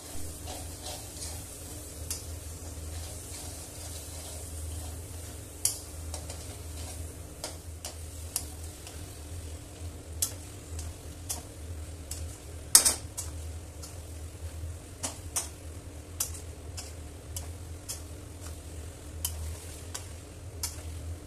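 Chicken pieces in masala frying with a steady sizzle in a metal kadai while a spatula stirs and turns them. The spatula scrapes and knocks against the pan every second or so, most sharply about halfway through, over a steady low hum.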